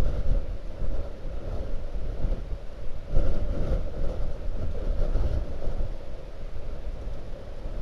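Blizzard wind buffeting an outdoor microphone in gusts, a loud low rumble that swells and eases, strongest a little after three seconds in.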